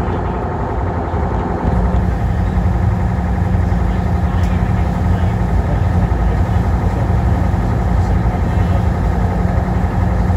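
Uber Boat river catamaran's engines droning steadily, a loud low hum that steps up in level about two seconds in and then holds.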